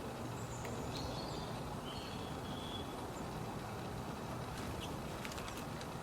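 A few short, high bird chirps in the first half, over a steady low rumble of outdoor background noise, with some faint clicks near the end.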